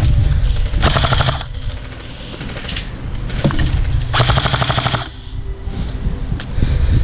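Two bursts of full-auto airsoft gun fire, a fast mechanical rattle of shots: a short burst about a second in and a longer one about four seconds in. A low rumble of wind and movement on the microphone runs underneath.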